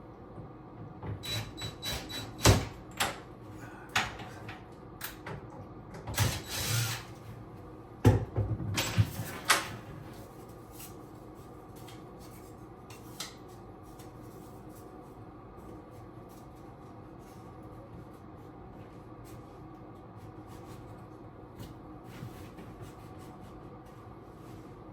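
Handling of tools and parts during the work: a run of sharp clicks and knocks with some rubbing over the first ten seconds, the loudest knocks about two and a half and eight seconds in, then only a faint steady hum.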